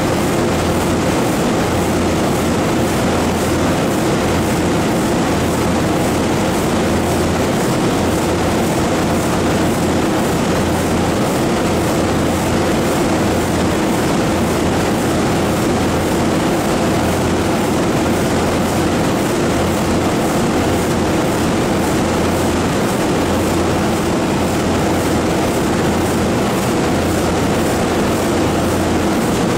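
The 1932 Burmeister & Wain double-acting two-stroke marine diesel engine running steadily: a loud, even mechanical clatter over a low, fast-pulsing drone.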